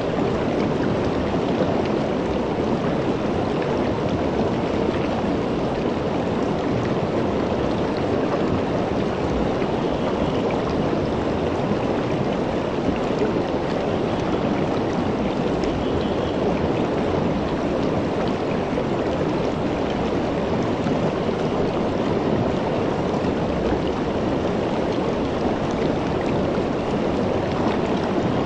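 Shallow river flowing over rocks and small riffles, a steady rushing of water.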